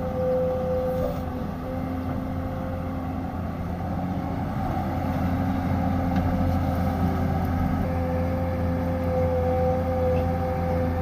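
Excavator engine running steadily under work, with a steady higher tone over it that drops away about two seconds in and returns near the end.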